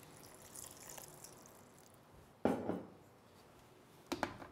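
A dash of water poured into a mixer-grinder jar, a faint high trickle for about two seconds, then a single solid knock of the jar or its lid about two and a half seconds in and two short clicks near the end.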